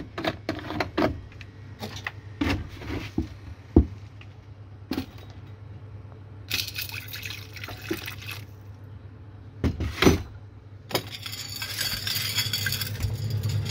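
Hydrochloric acid poured from a plastic jug into a glass beaker of gold pieces, with clicks and knocks from the screw cap, jug and glass. Near the end the acid swirls in the beaker as it is handled.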